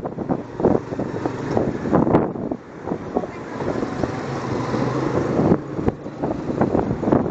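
Wind buffeting the microphone in irregular gusts on a moving motorcycle taxi, with the motorcycle's small engine running steadily underneath.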